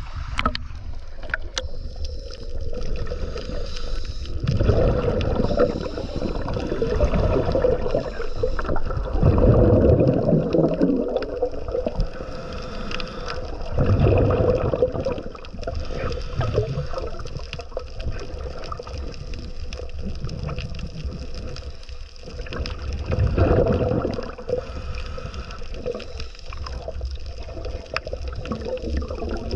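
Underwater sound of a scuba diver breathing through a regulator: surges of gurgling, rumbling exhaled bubbles every few seconds over steady water noise.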